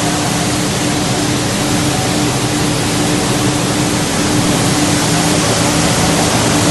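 Steady, loud industrial machine noise with a constant hum: a Costarelli plastic agglomerator and its drive motors running. It cuts off abruptly at the very end.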